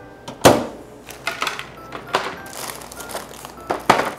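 Plastic instant-noodle packets and seasoning sachets crinkling and rustling as they are handled and torn, with a sharp crack about half a second in and another near the end.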